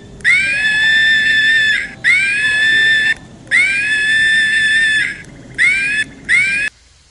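An animal giving five loud, shrill, screaming calls. Each swoops up in pitch and then holds. The first three last about a second to a second and a half; the last two near the end are short.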